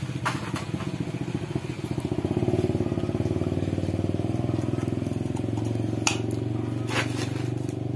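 Another engine idling steadily, with a few sharp metal clicks as valve lifters are set into an aluminium cylinder head.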